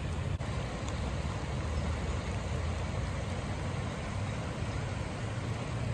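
Swollen San Lorenzo River floodwater rushing past: a steady rushing noise with a heavy low rumble, broken by a brief click about half a second in.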